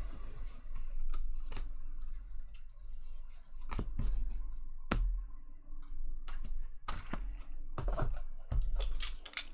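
Baseball card packs being opened and the cards handled: foil wrappers crinkling and tearing, cards sliding and clicking against each other in a run of short, irregular rustles and snaps.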